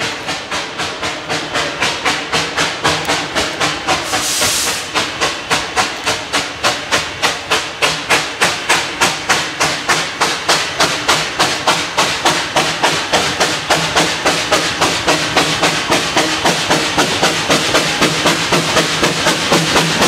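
Two-foot-gauge steam locomotive working toward the listener, its exhaust chuffing at about three to four beats a second and growing louder as it nears. A short hiss of steam cuts in about four seconds in.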